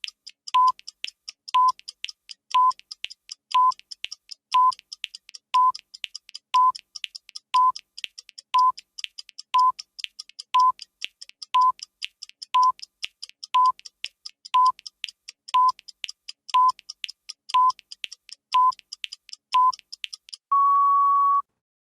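Countdown-timer sound effect: clock ticking with a short electronic beep every second, ending near the end in one longer, slightly higher beep about a second long as the timer reaches zero.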